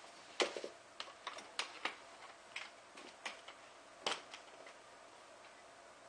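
Scissors snipping through an evaporative cooling pad and screen along the edge of a box fan: a run of irregular sharp clicks, loudest about half a second in and again around four seconds in.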